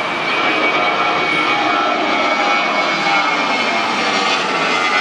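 Airbus A320 jet engines at takeoff power as the airliner climbs out low overhead: loud, steady jet noise with a high whine running through it, growing a little louder just after the start.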